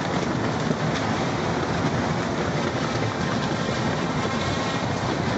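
Violent storm squall over a marina: strong wind and heavy driving rain making a steady, loud rush, heard from inside a boat's cabin.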